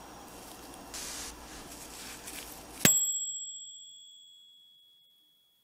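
Faint hiss, then about three seconds in a single high, clear bell ding that rings on and fades away over about two seconds.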